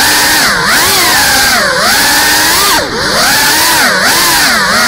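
GEPRC CineLog 35 FPV drone's motors and propellers whining, the pitch swooping up and down about once a second as the throttle changes, with a brief drop near the middle.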